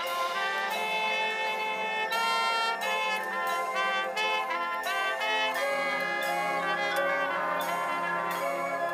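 Marching band brass section playing full chords in a competition show. Shorter moving notes come in about two seconds in, then longer held chords toward the end.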